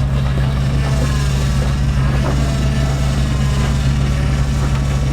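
Off-road rock crawler's engine running steadily at low, even revs as it crawls over rock.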